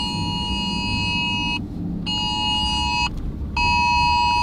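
Electronic warning beeper sounding a high buzzing tone, roughly one second on and half a second off, repeating, over the low rumble of a vehicle driving.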